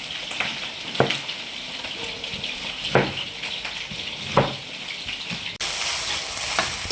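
Food frying in hot oil, a steady sizzle, with three sharp knocks, and the sizzle turning suddenly louder near the end.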